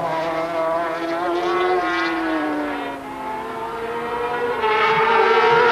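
Engines of several racing sidecar outfits running hard at high revs. One engine note slides slowly down over the first few seconds, then the engines rise in pitch and grow louder near the end.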